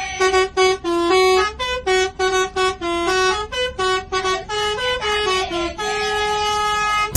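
Bus telolet horn of the Basuri type, a multi-tone air horn, playing a quick tune of short honked notes that step up and down in pitch, ending on one longer held note.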